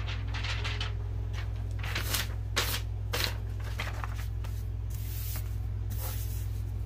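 Paper-backed glitter sheets being handled and moved on a tabletop, rustling and swishing in a series of short bursts, over a steady low hum.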